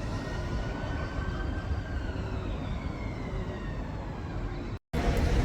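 Train running at the station, its whine falling slowly in pitch over a few seconds as it slows. A sudden cut just before the end gives way to a steadier, louder hum.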